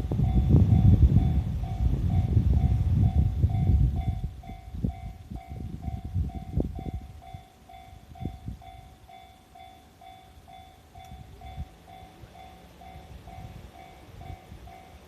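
JR East E531 series electric train running over a level crossing: a heavy rumble with clacks that fades away over about eight seconds, leaving a few single knocks. Throughout, the level-crossing warning bell keeps ringing, about two dings a second.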